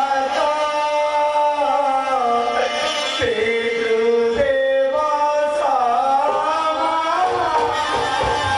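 Traditional Indian-style singing: one voice holds long notes and slides slowly between them. A low drum comes in near the end.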